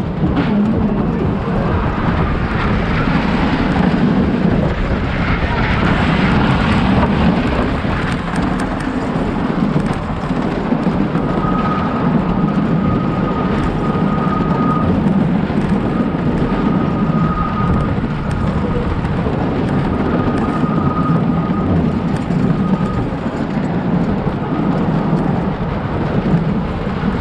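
Wooden roller coaster train running on its wooden track: a loud, steady rumble of wheels on the rails. Through the middle a thin high squeal comes and goes, as the wheels grind through a curve.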